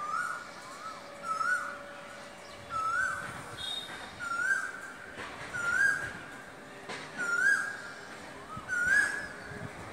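A bird calling over and over: a short whistled note that rises quickly and levels off, repeated about every one and a half seconds.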